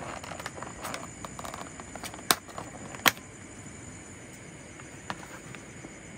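A few sharp clicks or knocks: light clatter at first, then two loud ones under a second apart and a fainter one later. Behind them runs a steady, high, thin insect drone.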